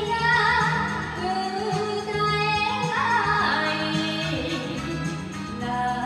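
A woman singing a Japanese song into a handheld microphone over a karaoke backing track.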